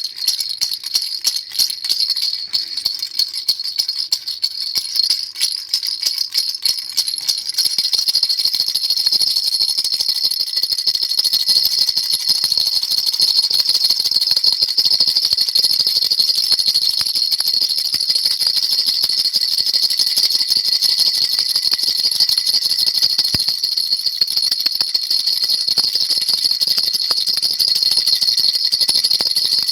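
A baby rattle being shaken, a bright high-pitched rattling. The shakes come as separate strokes for the first several seconds, then turn into fast, continuous shaking from about eight seconds in.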